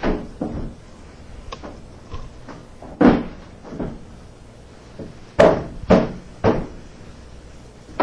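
Solid oak cabinet parts knocking and bumping against each other as they are handled and fitted together: a series of separate wooden knocks, the loudest about three seconds in and a run of three close together past the middle.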